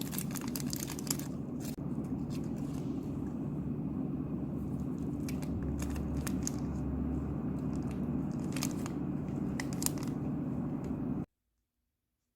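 A steady low hum with scattered clicks and crinkling over it, cutting off suddenly near the end.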